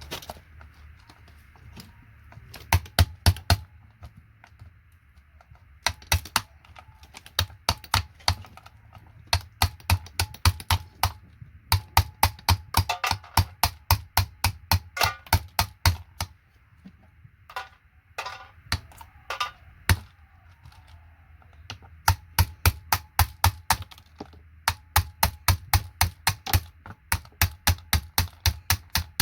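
Quick runs of sharp plastic clicks, several a second, with a few short pauses, as parts of a vintage keyboard are taken apart by hand.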